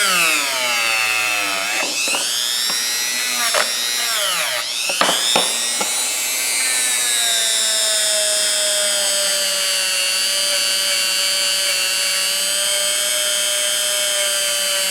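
Small power tool with a little wire wheel, wire-brushing rust and old paint off a pair of steel pliers. Its whine dips in pitch several times in the first five seconds, then runs steady.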